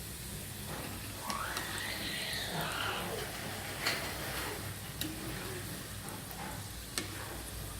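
Garlic and fenugreek seeds frying in hot mustard oil in a kadhai, a steady sizzle being stirred. The sizzle swells for a couple of seconds about a second in, and a few sharp clicks come through it.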